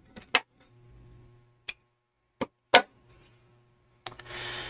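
A few faint, sharp clicks at irregular intervals, then a short soft hiss near the end.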